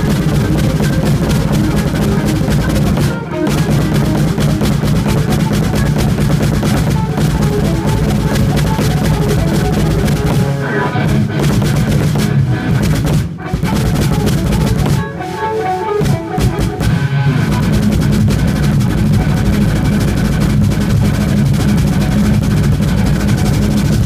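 Sakae 22-inch bass drum played with a double pedal in fast, continuous strokes, a rapid rumble of kicks. The run breaks off briefly about three seconds in, again around thirteen seconds, and for a moment between fifteen and seventeen seconds.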